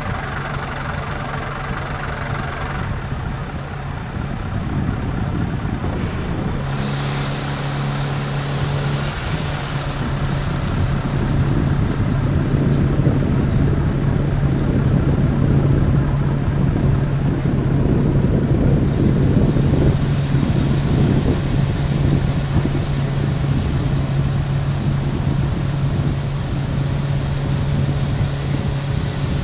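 Heavy dump truck's diesel engine running steadily under a full rock load. A strong low drone sets in about seven seconds in and gets louder a few seconds later.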